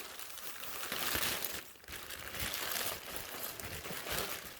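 Packaging rustling and crinkling as it is handled, in uneven bursts with a brief lull just before two seconds in.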